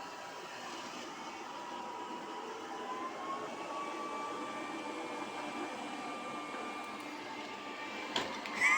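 Robot vacuum cleaner running: a steady motor whir with a thin whine that rises slightly in pitch about two or three seconds in. Near the end comes a knock and a short high-pitched call.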